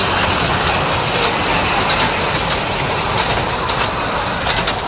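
Miniature park ride-on train running past on its narrow track, a steady rolling rumble with a few sharp wheel clicks, most of them near the end.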